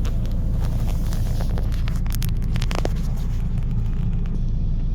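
Steady low rumble of a Renault Espace IV heard from inside the cabin, with a few light clicks about two to three seconds in.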